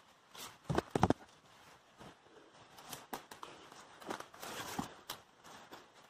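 Footsteps crunching and rustling through dry leaf litter and undergrowth, irregular, with the heaviest steps about a second in.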